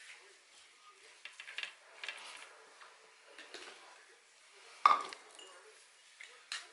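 Clinks and knocks of dishes and utensils being handled, a scatter of short light clatters with one sharp, louder knock about five seconds in.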